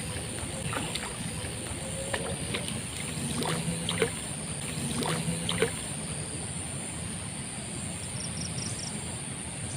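Steady outdoor hiss of flowing river water, with a few faint clicks and taps between about one and six seconds in.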